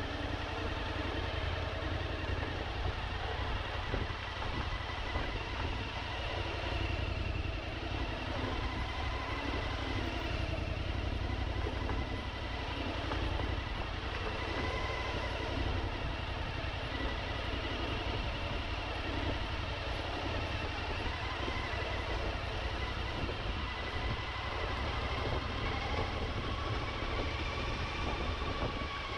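Suzuki V-Strom motorcycle being ridden, its engine running steadily under a constant low rumble of wind and road noise.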